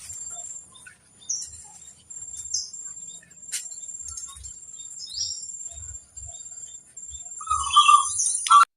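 Birds chirping in short, sparse notes with quick pitch glides over a steady high insect buzz, with a louder burst of warbling near the end that cuts off suddenly.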